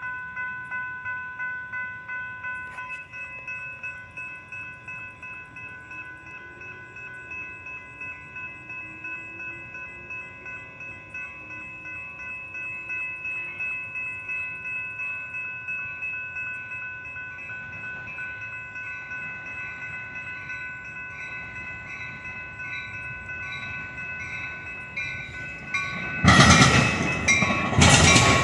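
Railroad grade-crossing bell ringing in a fast, even rhythm. Near the end a Metra bilevel commuter train reaches the crossing, and its passing rush and wheel noise suddenly grow loud.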